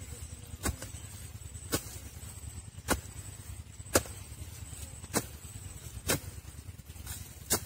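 Hand hoe's blade striking and chopping into dry, clumpy soil while digging a planting hole, about one sharp strike a second. A steady low rumble runs underneath.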